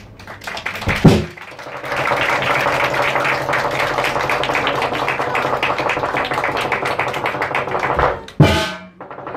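Lion dance percussion: a fast, steady drum roll with crashing cymbals from about two seconds in to about eight seconds. A single loud strike comes about a second in and another near the end.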